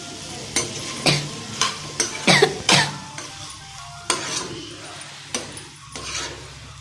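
A steel spoon stirring tomatoes frying in a metal pan, with about ten scrapes and clinks against the pan, quickest and loudest a little after two seconds in, over a faint sizzle.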